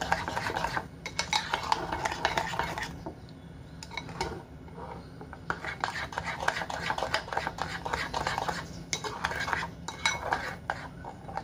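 A spoon stirring a thick char siu marinade in a bowl, scraping and clinking rapidly against the bowl's sides. It eases off about three seconds in and picks up again around the middle.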